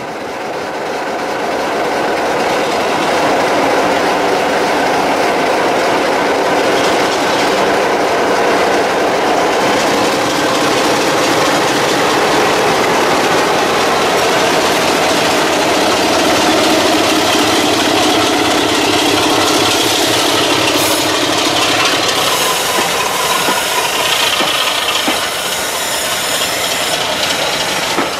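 BR Class 33 diesel locomotive D6575 passing close by, its Sulzer eight-cylinder engine running under a train of coaches; the sound swells over the first few seconds. Later the engine fades into the rumble and clatter of the coaches' wheels over the rail joints.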